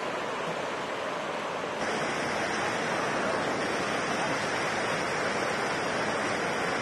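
Steady rush of flowing river water in a rapid, getting a little louder and brighter about two seconds in.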